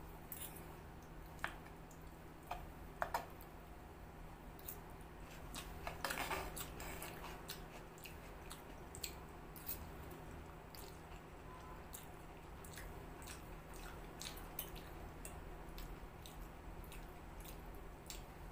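Close-up chewing of egg chowmein and chicken Manchurian, with many small scattered clicks of a fork and spoon on clay dishes and a denser stretch of eating noise about six seconds in, over a steady low hum.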